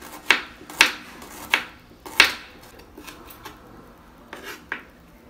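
A kitchen knife slicing ginger on a wooden cutting board: four sharp knocks of the blade on the board in the first couple of seconds, then a few lighter taps.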